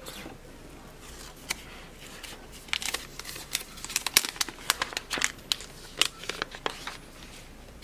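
Packaging being handled and unwrapped during an unboxing: crinkling with sharp crackles and clicks, one early click, then a dense run from about three seconds in until nearly the end.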